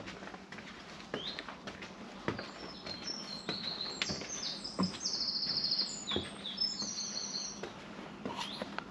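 Footsteps climbing wooden stairs, a knock at every tread about every half second. Over them a small songbird sings a run of high chirps and a buzzy trill in the middle.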